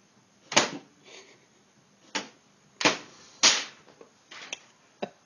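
Inkjet printer's mechanism clacking: several sudden sharp clacks and rattles at uneven intervals, four of them loud.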